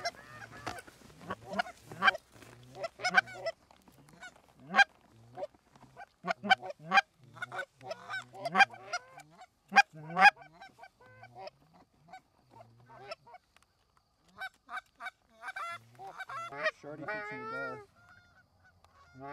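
Canada goose honks and clucks, short and rapid, some very loud and close, coming in bursts with a brief lull about two-thirds of the way through and longer honks near the end.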